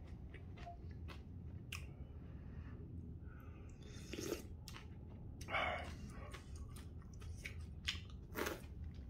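A person chewing noodles and slurping hot noodle-soup broth from a spoon, with small mouth and utensil clicks; longer slurps come about four, five and a half and eight and a half seconds in.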